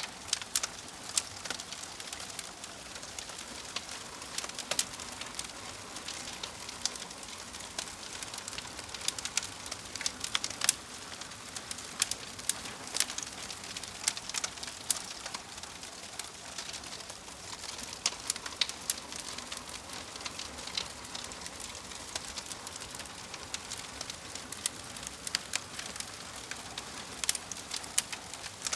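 Wood fire in a fireplace crackling: a steady hiss with frequent irregular sharp pops and snaps from the burning logs.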